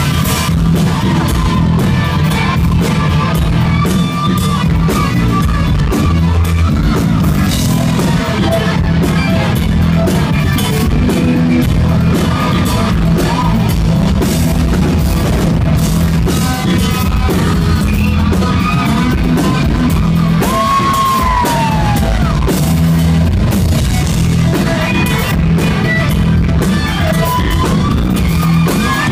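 Live rock band playing loudly, with drum kit, guitar and a singer. About two-thirds of the way through, a long note slides downward.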